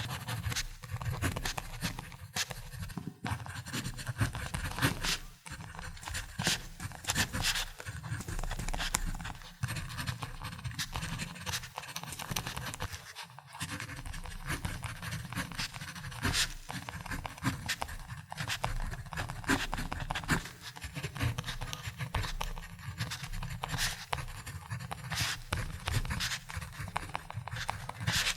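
Ballpoint pen writing on paper: continuous scratching of the tip in quick, closely spaced strokes, with a few brief pauses.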